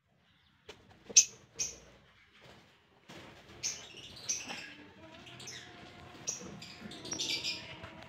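Lovebirds chirping: two sharp high chirps about a second in, then a run of short chirps from about halfway on.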